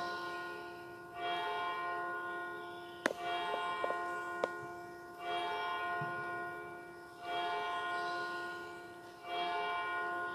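A soft pitched note, the same each time, sounding about every two seconds and fading away after each stroke. A few light clicks fall between about three and four and a half seconds in.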